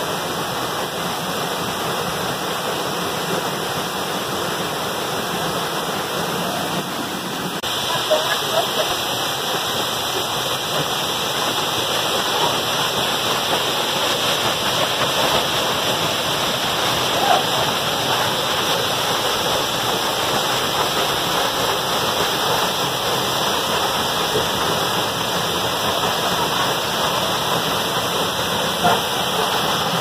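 A waterfall's steady rush of water falling onto rock and into its pool. About eight seconds in, the sound turns a little brighter and louder.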